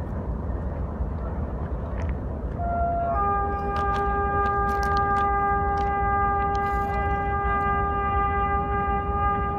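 Pakistan Railways GE GEU20 diesel locomotive's horn blown close by: a short blip about two and a half seconds in, then one long steady blast from about three seconds in that is still sounding at the end. A low steady rumble sits underneath, with a few sharp knocks during the blast.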